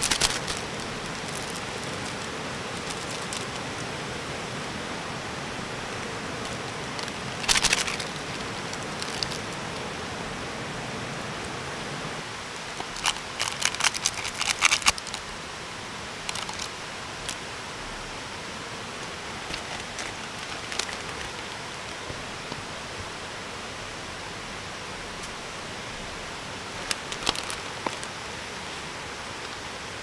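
Heavy rain and the rushing valley stream making a steady hiss, which thins a little partway through. Brief crinkles of plastic food packets being handled break in a few times, most busily around the middle.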